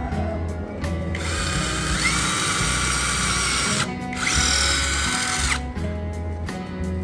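A power tool running in two bursts of a few seconds each, each spinning up to a steady whine, over background music.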